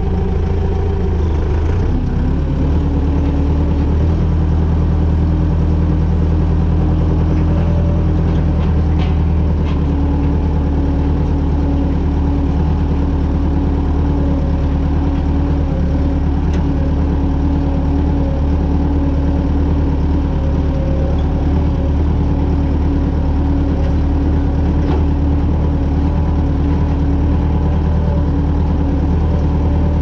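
Deutz D 6806 tractor's air-cooled six-cylinder diesel running steadily while the tractor pulls a meadow drag across grassland, heard close up from the hood. The engine note drops slightly about a second in, then holds steady.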